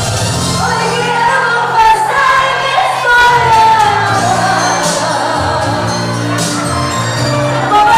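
A woman singing through a microphone over amplified backing music, with long held and gliding notes above steady sustained bass tones.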